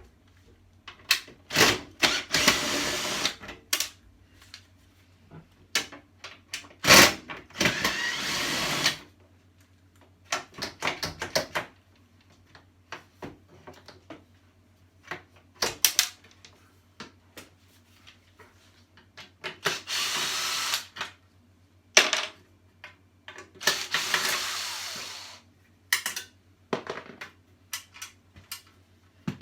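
Power screwdriver running in short bursts of a second or two, backing screws out of a table saw's housing, with clicks and knocks of the bit and parts between the bursts.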